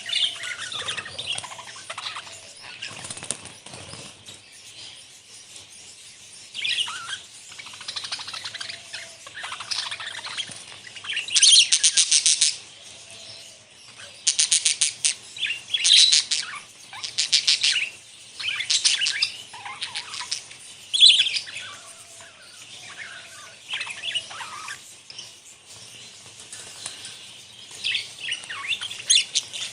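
Budgerigars chattering: warbling chirps in irregular bursts, with several short rapid buzzy trills, the loudest in the middle stretch.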